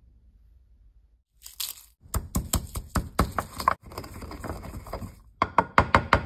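Wooden pestle pounding dried red chili flakes and seeds in a wooden mortar: a run of sharp, crackling strikes about five a second, a stretch of grinding and crushing in the middle, then another quick run of strikes near the end.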